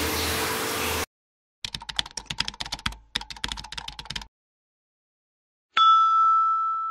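Keyboard-typing sound effect: a quick run of key clicks in two bursts with a short break between. After a pause comes a single bright ringing chime that fades out slowly. A steady noisy background track cuts off about a second in.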